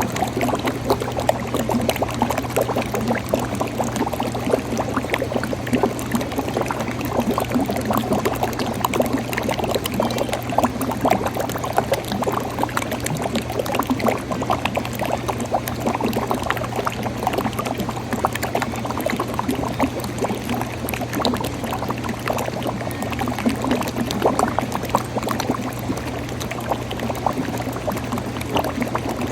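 Liquid laundry detergent pouring in a steady, unbroken stream, with a continuous splashing gurgle.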